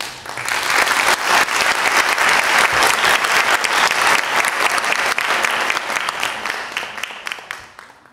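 Audience applauding, starting as the last held note of the music ends, swelling within a second, then thinning and dying away over the last two seconds.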